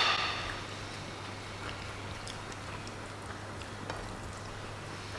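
Quiet eating sounds at a meal of rice and chicken curry: scattered faint clicks and taps over a steady low hum, after a brief louder noise at the very start.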